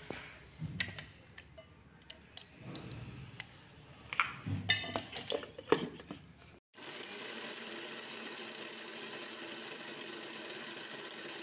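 Clinks and knocks of a steel mixer-grinder jar being handled, then from about six and a half seconds in an electric mixer grinder (mixie) running steadily, grinding boiled raw mango with its cooking water into pulp.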